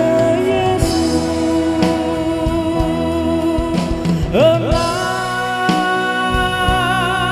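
A man singing a Christmas song into a microphone with instrumental accompaniment. About halfway through he slides up into a long held note that wavers near the end.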